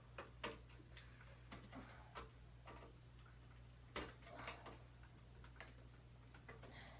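Faint scattered clicks and taps of a screwdriver working in the release-clip holes of an Xbox 360's plastic case, the clearest about half a second in and about four seconds in, over a steady low hum.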